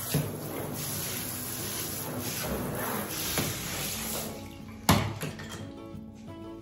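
Handheld shower spraying water into an acrylic bathtub, which is being rinsed down; the water stops about four and a half seconds in, followed by a single sharp knock. Background music comes in near the end.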